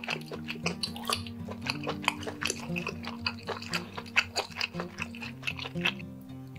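Close-miked mukbang eating sounds: a rapid run of wet, sticky clicks and smacks from chewing and from handling skewered whole squid in thick sauce, stopping near the end. Quiet background music with low notes plays under it.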